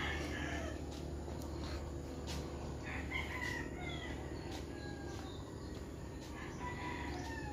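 Rooster crowing and other birds calling, with a few faint sharp clicks between them.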